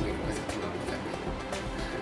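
Background music with a few sharp percussive beats.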